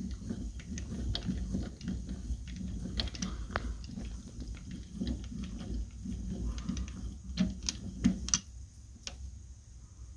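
Mini-lathe apron gearing with a 3D-printed reduction gear clicking and ticking irregularly as the carriage handwheel is cranked and the carriage travels along its rack, over a steady low rumble. A few louder metal clicks come about three quarters of the way through.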